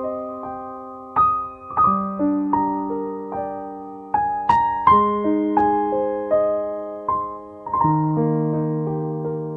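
Slow background piano music: single notes and chords struck every half second or so and left to ring out and fade.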